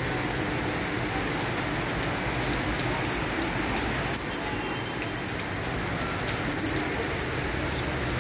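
Rain falling steadily, with scattered sharp ticks of drops striking close by.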